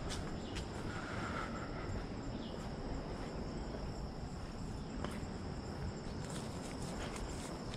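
Insects buzzing in a steady high-pitched chorus, with a walker's footsteps on the trail as a few sharp ticks.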